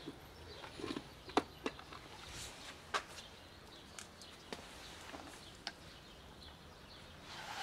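A cat eating dry kibble from a plastic tub: scattered sharp crunches and clicks, then a brief louder rustle near the end.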